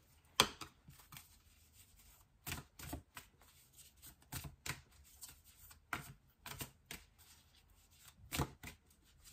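Tarot cards being handled: a scattering of separate crisp snaps and taps at irregular intervals, the loudest about half a second in.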